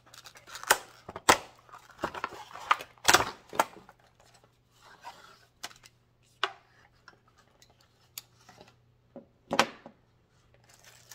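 Irregular clicks, taps and light clatter of small hard objects being handled, with a few louder knocks in the first four seconds and another near the end, over a faint steady hum.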